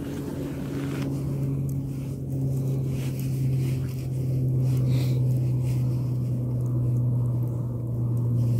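A steady engine drone, low and unchanging in pitch, growing a little louder over the first few seconds.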